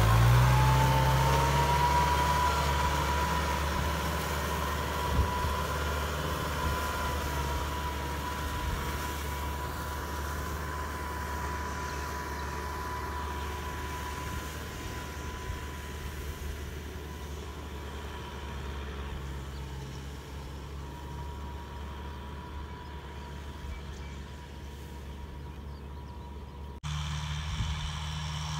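Kubota M6240 tractor's diesel engine running steadily under load while pulling a disc plough, with a high whine that rises at the start and then holds. The sound fades slowly as the tractor moves away, then jumps louder near the end.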